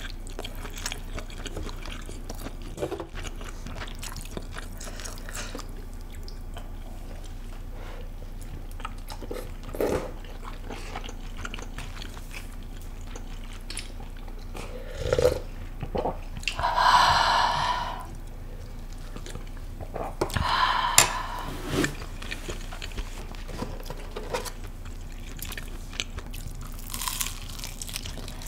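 Close-miked eating sounds: chewing and mouth clicks, with two loud slurps of spicy mala soup broth from a wooden spoon around the middle. Near the end there is a crunchy bite of fried chicken.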